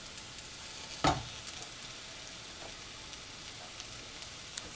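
Faint, steady sizzling hiss from a hot cooking pan, with one sharp knock about a second in and a few small clicks near the end.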